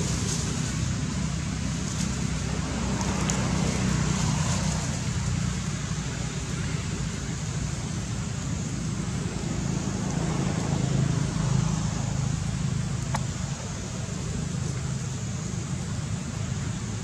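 Steady low outdoor rumble of background ambience, with faint indistinct voices about three to five seconds in.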